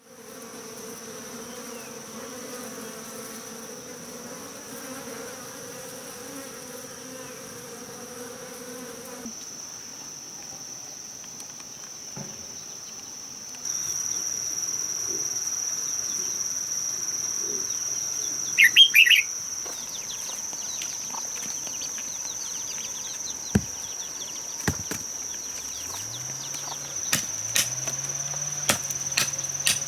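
Steady high-pitched drone of insects, with a brief loud squeak about two-thirds of the way through and scattered sharp knocks near the end.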